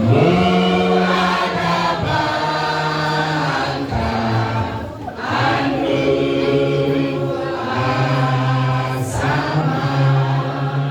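A congregation or church choir singing a hymn together, many voices holding long notes that change about every second.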